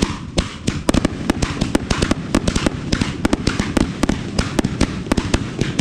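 Aerial fireworks going off in a rapid barrage: many sharp bangs a second, overlapping, over a continuous low rumble.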